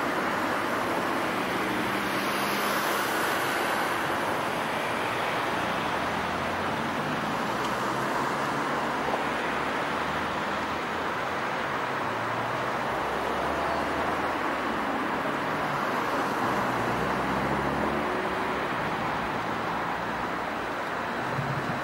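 Electric multiple unit, a Stadler FLIRT, humming at a station platform and starting to pull away about halfway through, with low drive hums rising and falling. A steady traffic-like rush lies under it throughout.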